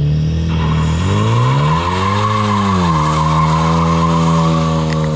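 Subaru WRX's turbocharged engine revving up and settling back about two seconds in, then holding steady, with a continuous hiss over it from about half a second in.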